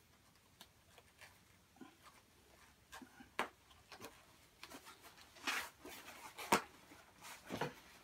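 Leather belt being handled and buckled on: faint rustling of stiff leather with scattered clicks of a metal buckle, a sharp click about three and a half seconds in and the loudest click about six and a half seconds in.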